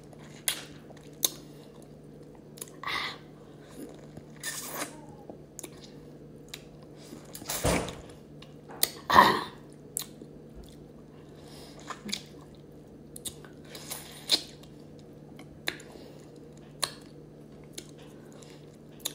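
Close-up mouth sounds of a person biting into and sucking on a lemon wedge: wet clicks and smacks, with several longer sucking sounds, the loudest about nine seconds in.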